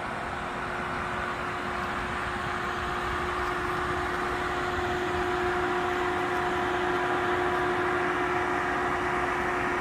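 Steady electric whir with a low held hum from a Waymo Jaguar I-PACE robotaxi standing with its power on, getting a little louder partway through.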